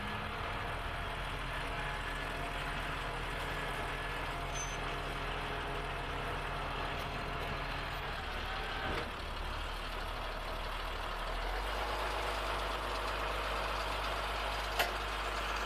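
Flatbed tow truck's engine running steadily at idle; its pitch shifts about nine seconds in and the low hum grows stronger a couple of seconds later. A single sharp click near the end.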